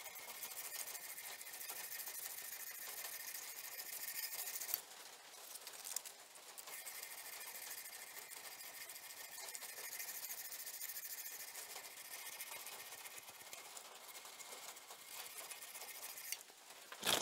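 Strip of P120 sandpaper pulled quickly back and forth, shoeshine-style, across a hardened steel knife blade in hand sanding, a steady rasping hiss. It pauses for about two seconds near five seconds in, then resumes and stops shortly before the end.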